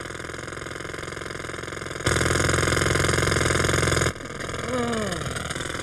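Pneumatic jackhammer (road drill) hammering in a fast, steady rattle. It turns much louder about two seconds in, holds for about two seconds, then drops back.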